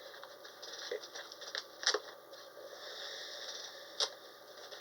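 Scratching and chipping with a small digging tool at a fossil dig-kit block, with sharp clicks about two seconds in and again near four seconds.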